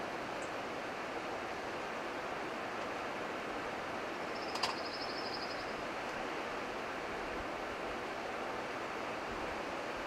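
River water running steadily over a shallow riffle. About four and a half seconds in there is one sharp click, followed by a brief high rattling trill.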